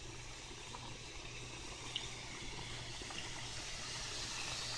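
Pot of pasta water at a rolling boil, a steady bubbling hiss, joined toward the end by a brighter, louder hiss: chicken, onions and peppers sizzling in the frying pan.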